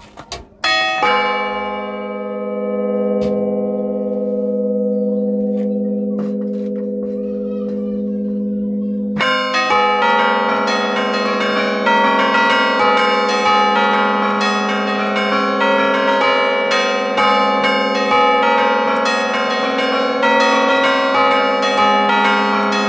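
Bronze church bells of a five-bell peal in A♭3 (Giorgio Pruneri, 1907), heard up close from the bell chamber. One bell is struck about a second in and hums on, slowly fading. From about nine seconds, the bells are struck by hand in a fast, continuous melodic run: Bergamasque allegrezze.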